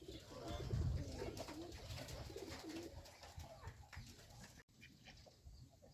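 Geese giving faint, soft, low calls that waver in pitch, fewer and quieter in the last second or so.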